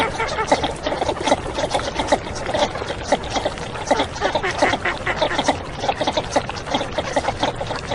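Northern shovelers giving a dense, overlapping run of short clucking notes, several a second.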